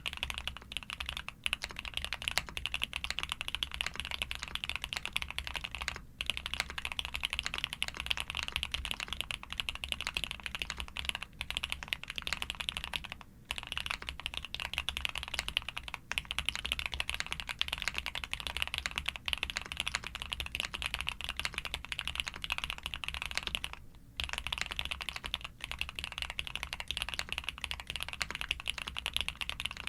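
Fast, continuous typing on a Suit80 custom mechanical keyboard built with frankenswitches (Cherry top housings on SP-Star white switches), a POM plate, full foam and DMK Astronaut keycaps. The keystroke clicks come densely, broken by a few short pauses.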